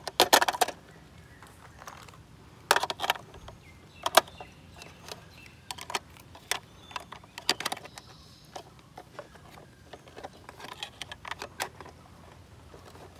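AA batteries clicking and clattering into the plastic battery compartment of a toy car, and the compartment's plastic cover being fitted and snapped shut. It is a scattered series of small sharp clicks, some in quick clusters.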